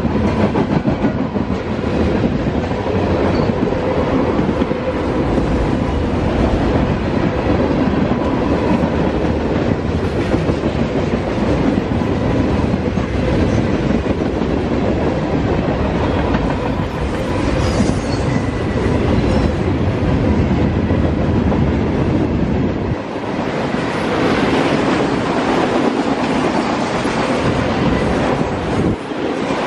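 Norfolk Southern freight train rolling past at close range: tank cars, covered hoppers and autoracks clattering steadily, their wheels clicking over rail joints. About three quarters of the way through, the low rumble thins and a higher rushing noise takes over.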